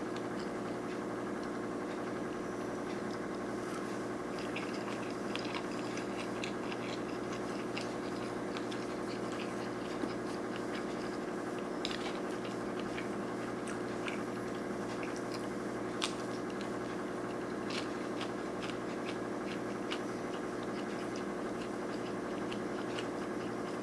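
Close-miked chewing and crunching of a sushi roll with crispy fried shrimp tempura, heard as scattered short crisp clicks. Under it runs a steady electrical hum.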